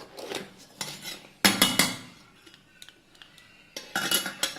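A whisk beating eggs in a bowl, clinking and scraping against the bowl, with two louder bursts about a second and a half in and near the end.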